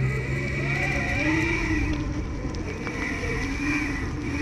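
Dual brushless motors of an electric off-road skateboard running under power: a high whine that fades briefly and comes back, over a lower hum that wavers in pitch and a low rumble.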